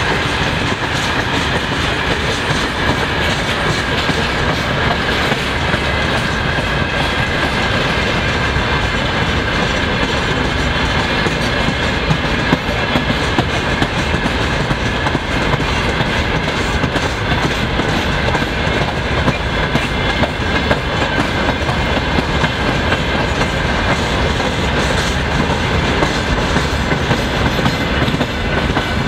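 Freight train of open-top gondola wagons rolling past at low speed and slowing: a steady rumble of steel wheels on rail with a run of clicks over the rail joints, and a thin steady high tone over it.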